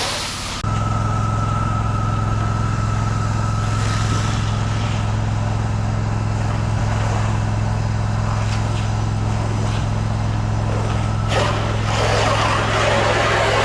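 Pressure washer engine running at a steady speed, an even drone that starts abruptly just after the beginning. A burst of hissing spray comes in near the end and lasts about two seconds.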